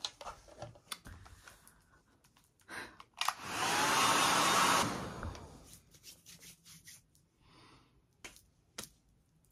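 A steady hiss lasting about a second and a half, most likely an aerosol hair spray being sprayed. Light clicks of handling come before and after it.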